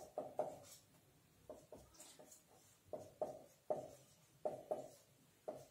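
Marker pen writing on a whiteboard: a faint series of short, irregular strokes as letters are written.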